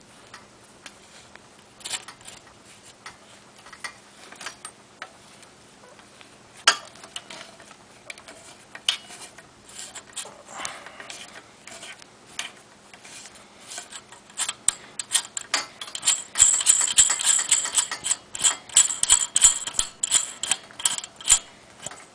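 Small metal headset hardware clicking and ticking as the lock nut is threaded onto the bicycle fork's steering tube. Scattered taps turn into a fast, dense run of clicks near the end.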